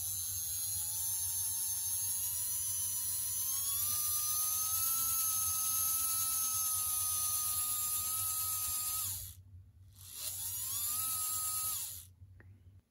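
Small open-frame electric motor of an HO scale steam locomotive mechanism running on a test, driving the wheels and freshly assembled, oiled valve gear. It gives a whine that rises in pitch as it speeds up and then holds steady, cuts off about nine seconds in, then runs again briefly with a quick rise in pitch and stops.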